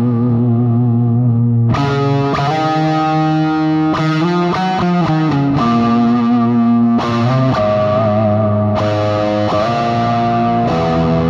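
Distorted electric guitar lead played through a Lovetone Meatball envelope filter pedal. A held note wavers in pitch, new notes are struck about two seconds in, a quick run of notes follows midway, and more held, wavering notes come near the end.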